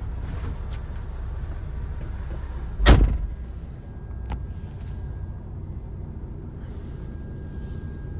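MAN TGX 470 Euro 6 truck's inline six-cylinder diesel idling, heard as a steady low rumble inside the cab. A single sharp thump about three seconds in is the loudest sound, followed by a lighter click about a second later.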